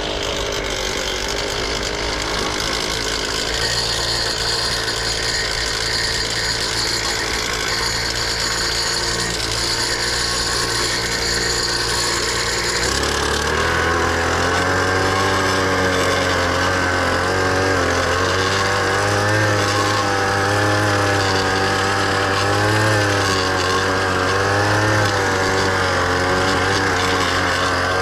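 Small two-stroke mini tiller (garden cultivator) engine running steadily. About halfway through, its tines dig into the soil and the engine note drops lower and wavers under the load.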